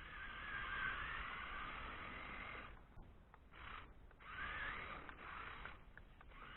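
Electric motor and gears of an RC rock crawler whining as it drives through snow, the pitch wavering with the throttle. It runs for a few seconds, then comes in short spurts with brief pauses.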